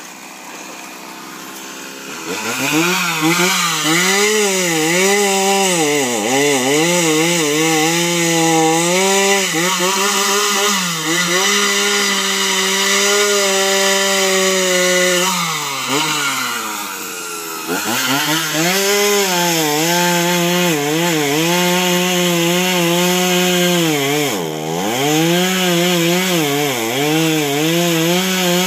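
Chainsaw engine running and being revved, its pitch repeatedly rising and falling. It picks up about two seconds in, sinks toward idle around sixteen seconds, and revs up again about two seconds later.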